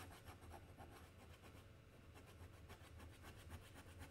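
Faint scratching of a glass dip pen on paper, a quick run of short back-and-forth hatching strokes.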